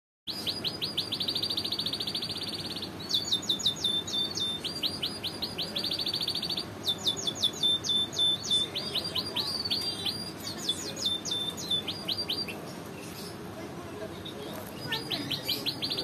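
Caged canary singing: fast, high trilled phrases strung one after another, breaking off for a couple of seconds about three-quarters of the way through before starting again.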